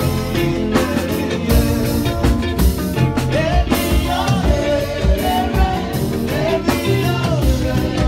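Church choir singing into microphones over amplified band music with a steady drum beat.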